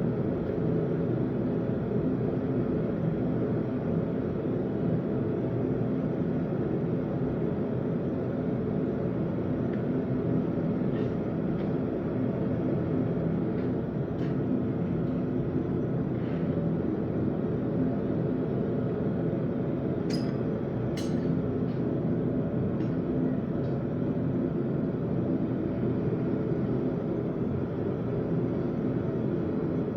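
Blacksmith's forge running with a steady, even rumble, with two sharp clicks about twenty seconds in.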